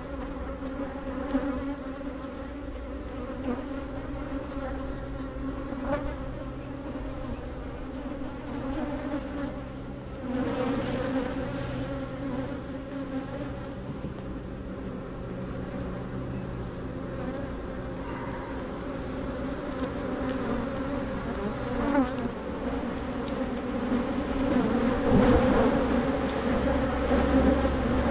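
Honey bees buzzing in a dense, steady swarm right at the microphone, growing louder toward the end. The bees are agitated, defending their hive as it is opened.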